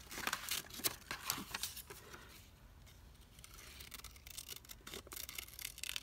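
Scissors snipping through a thin book page: a run of quiet, crisp snips, with a lull about two seconds in before they pick up again.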